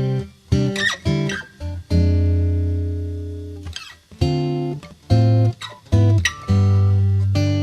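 Background music: acoustic guitar notes and chords, plucked and strummed, each ringing out and fading, with squeaks of fingers sliding on the strings between them.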